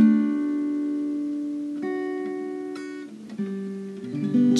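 Background acoustic guitar music: a few slow chords, each struck and left to ring out.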